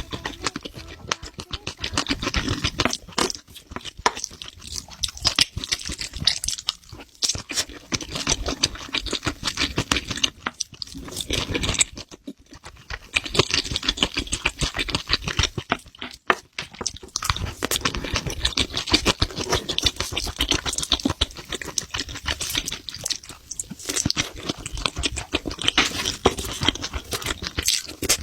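A person chewing and eating food close to the microphone: a dense, irregular run of crunchy, clicky chewing sounds with a couple of short pauses.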